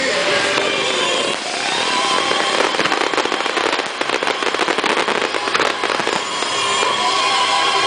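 Fireworks display: aerial shells bursting, with dense crackling and popping that is thickest through the middle.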